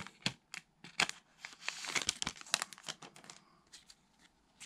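Foil wrapper of a baseball card pack crinkling and crackling as it is handled and opened. The crackles come thick for about three seconds, then thin out to a few scattered ones.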